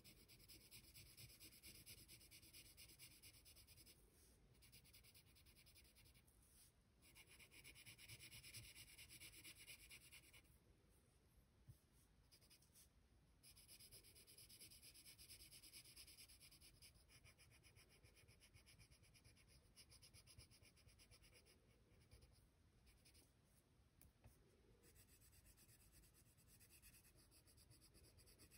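Pencil shading on paper: faint, quick scratchy strokes in stretches of a few seconds, with short pauses between them.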